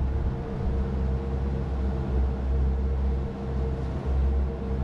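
Boat engine running steadily at trolling speed, a low drone with a faint steady whine above it, over the hiss of water along the hull.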